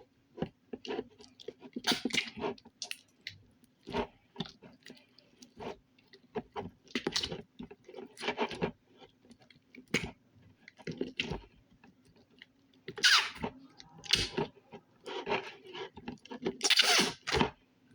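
Slime being squeezed and worked by hand: a run of short, irregular squishes and clicks, with longer, louder squelches about 13 and 17 seconds in.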